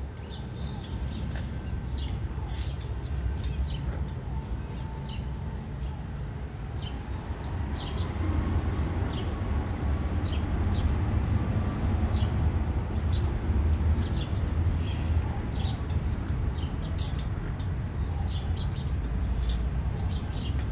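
Short, high bird chirps scattered throughout, over a steady low rumble that grows louder about eight seconds in.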